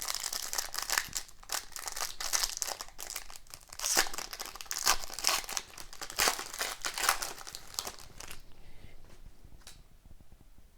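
Foil wrapper of a hockey card pack being torn open and crinkled in the hands, with dense crackling that dies down after about eight seconds.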